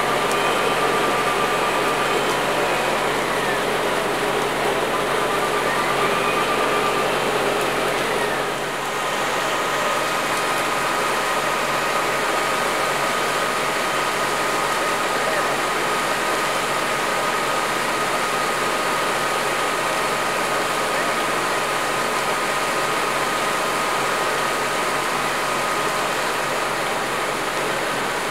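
Fire apparatus engines running at the fire scene: a steady mechanical drone, with a steady high whine from about nine seconds in. Two faint rising-and-falling tones are heard in the first eight seconds.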